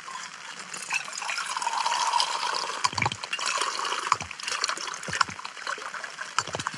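Water pouring from a plastic bottle into a small metal cup, a steady trickle with a few soft knocks in the second half.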